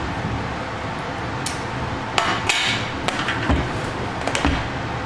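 A series of sharp clicks and knocks, about seven spread over a few seconds, from handling the hard plastic headlight housings.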